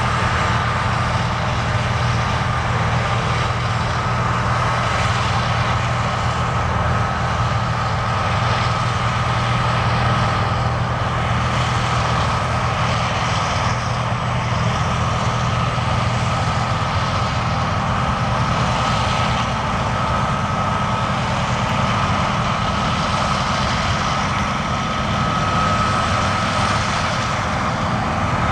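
John Deere combine harvester running steadily under load while harvesting wheat: a constant low engine drone with a steady high whine over it.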